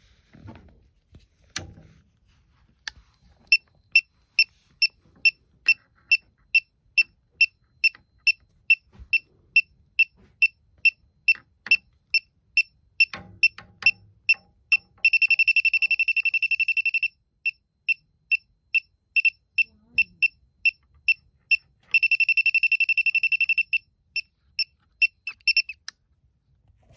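Elitech WJL-6000 refrigerant leak detector beeping in a fast, even, high-pitched rhythm of about two beeps a second. Twice it switches to a continuous unbroken tone for about two seconds, the alarm showing refrigerant picked up at the leak.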